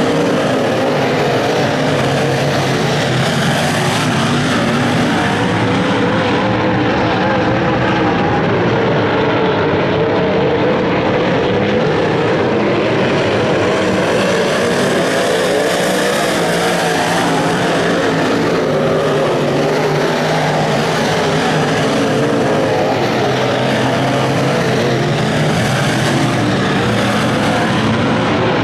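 A pack of IMCA modified race cars with V8 engines running at racing speed on a dirt oval. Several engines run together in a loud, continuous drone with wavering pitch, swelling and fading as the cars come by.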